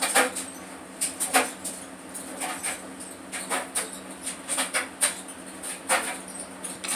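Plastic hair-dye bottles being handled and squeezed as pink dye is squirted from a nozzle bottle into another: irregular short clicks and crinkles of plastic, over a steady low hum.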